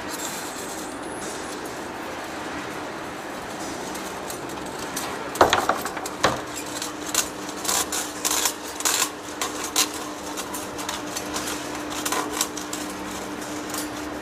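Heavy machinery running: a loud knock about five seconds in, then a steady hum sets in, with irregular metallic clanks and clicks over it.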